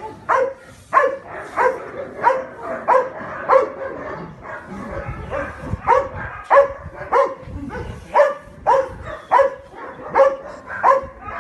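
A dog barking steadily and repeatedly, nearly two short barks a second, with a brief pause about four seconds in.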